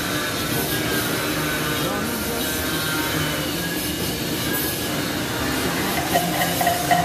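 Stick welding arc from a 7018 electrode running steadily on carbon steel pipe, a continuous crackling hiss. A rhythmic beat of music comes in near the end.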